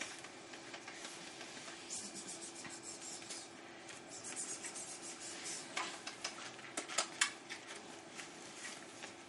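Scattered light clicks and rubbing or scraping noises, more frequent in the second half, over a steady faint hum.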